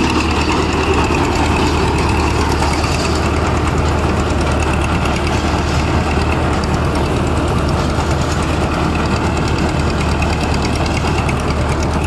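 Farmtrac 6055 tractor's four-cylinder diesel engine running steadily as it drives a tractor-mounted combine harvester through its belts and chains. The result is a continuous low engine hum mixed with machinery clatter.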